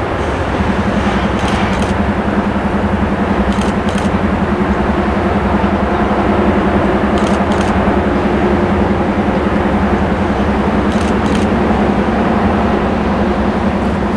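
Two trains passing, a rail grinder train and a double-stack freight: a steady engine drone with a pulsing hum that sets in about half a second in, and pairs of faint clicks every few seconds.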